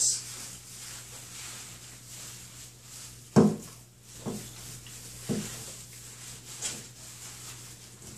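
Hands rubbing shampoo lather into a wet boxer dog's coat, a soft rubbing hiss broken by four dull thumps, the loudest about three seconds in.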